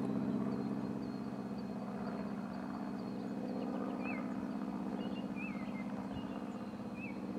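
A steady low engine-like drone with a fast flutter, and a few short, high, wavering bird chirps about four, five and a half and seven seconds in.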